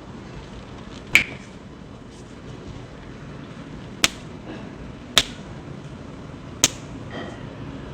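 Joints cracking during chiropractic adjustments: four sharp cracks, the first about a second in and the others at roughly four, five and six and a half seconds.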